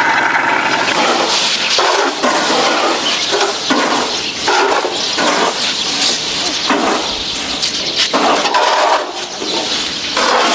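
Dried rice grain scraped across a concrete drying floor and scooped with a wooden box scoop, rushing as it pours into woven sacks, in repeated, uneven scoops.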